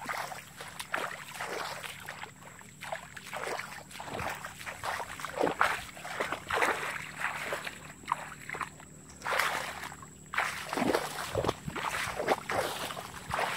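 Footsteps sloshing and splashing through shallow water and mud at a walking pace, uneven and repeated.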